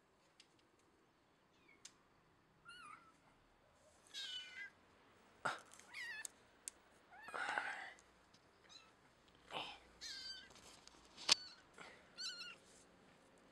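Kitten meowing repeatedly: about eight short meows spread through, some bending up and down in pitch, with a few sharp clicks between them, the loudest click late on.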